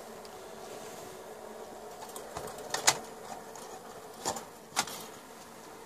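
Pot of water on a homemade wax gasification stove coming to the boil: a steady, buzzing simmer over the stove's blue flame, short of a rolling boil. A few sharp ticks come in the second half.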